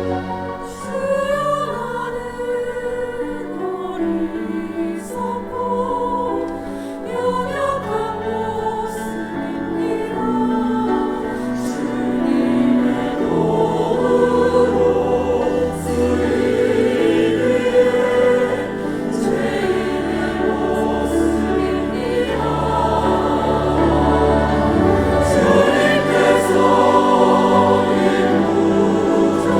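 Church choir singing a sacred anthem in several parts over sustained low accompaniment, swelling louder through the second half.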